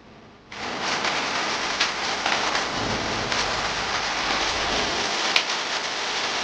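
Heavy rain pouring down as a steady hiss, starting suddenly about half a second in.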